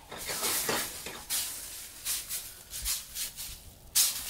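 Mushrooms reducing in red wine sizzle in a stainless steel skillet as the pan is shaken and tossed, giving a string of short, uneven swishes of sizzle, the sharpest about four seconds in.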